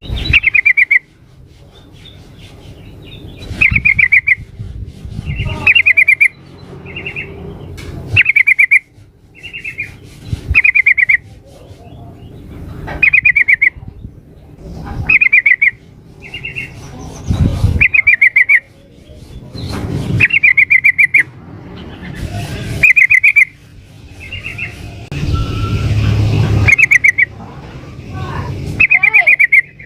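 Female yellow-vented bulbul (trucuk) calling to a male: short, loud, bubbly chattering phrases repeated about every one to two seconds.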